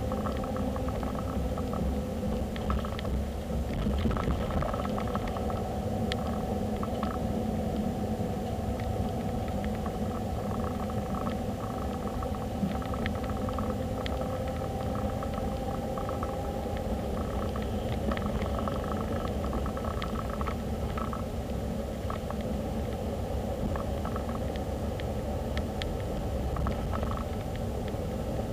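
Steady road and engine rumble of a moving car, heard from inside the cabin through a dashcam's microphone, with a faint whine that drifts slowly in pitch and scattered faint clicks.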